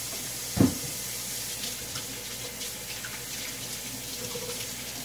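Kitchen sink tap running while hands are washed under it, a steady hiss of water, with one dull thump about half a second in.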